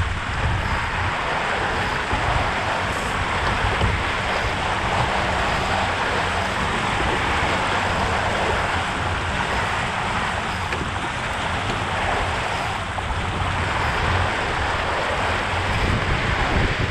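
Water rushing and spraying along the hull of an RS K6 sailboat moving fast, with steady wind rumble on the microphone.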